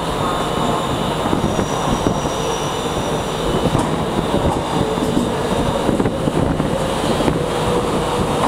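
Virgin Trains Class 390 Pendolino electric train running into the platform and past at close range: a steady rumble of wheels on the rails with scattered clicks and a few faint steady tones.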